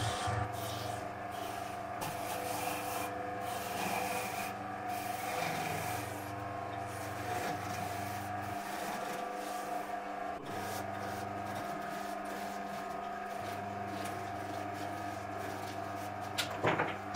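Small lathe running with a steady motor hum while a turning tool scrapes and cuts into a spinning apple, the rubbing of the blade on the fruit rising and falling as the cut moves. A few sharp clicks near the end.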